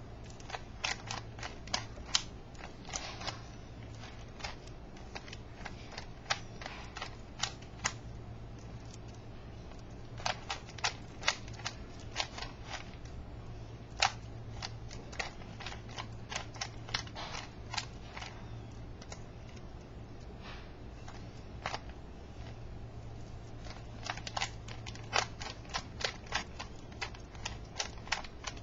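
Rubik's Cube being turned fast by hand: its plastic layers click and clack in quick runs of turns, broken by short pauses.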